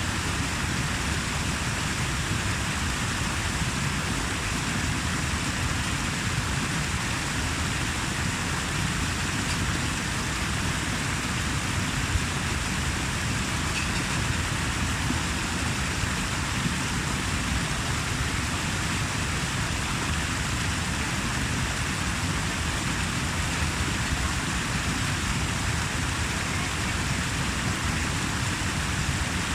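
Steady rushing water: an even, unbroken noise.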